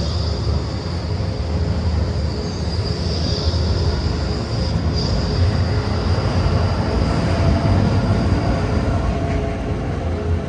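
City tram passing close by on street rails: a steady low rumble from its wheels and running gear, with a thin high whine over it that fades near the end as the tram moves off.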